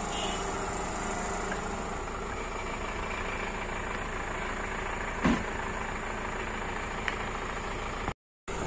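Truck's diesel engine running steadily at idle, with a single knock about five seconds in. The sound cuts out briefly near the end.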